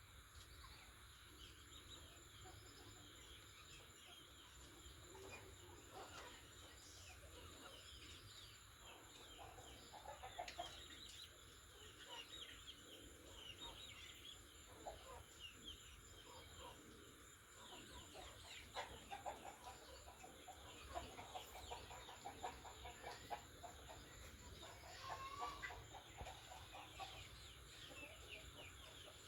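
Chickens clucking faintly, many short scattered calls, busier in the second half.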